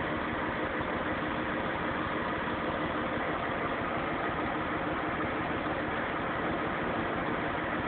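BMW 528i engine idling steadily, with a low, bass-heavy noise that appeared after a fender bender.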